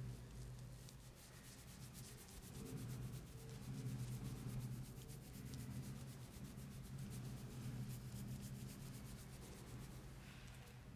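Hands rubbing and massaging a head of hair and scalp close to the microphone: a fast, even run of soft scratchy strokes over a low rumble.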